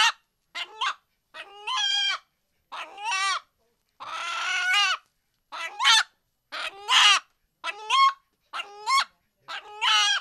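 Domestic rooster giving a string of short alarm calls, about one a second, many in two parts: the call it makes when frightened, which is likened to the words "Allah Allah".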